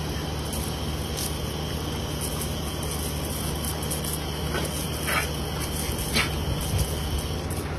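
Hose spraying a steady jet of water, hissing over a low steady hum, while a dog bites at the stream; a few short sharp sounds from the dog come about five and six seconds in.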